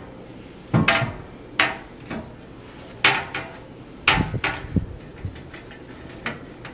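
Glass top panel knocking and clinking against a metal console table frame as it is set into place: several sharp knocks, some with a short ring.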